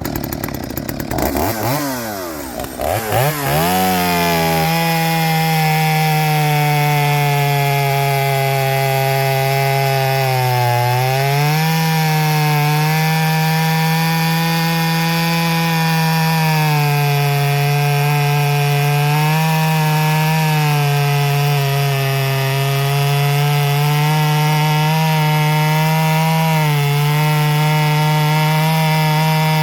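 Stihl 023C two-stroke chainsaw revving up over the first few seconds, then held at high revs cutting through semi-green wood. Its pitch dips briefly several times as the chain bites under load.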